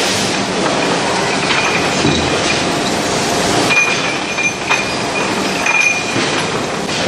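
Automatic billet feeder for a forging furnace running: steady metallic clattering and rattling, with a few brief high metal squeals.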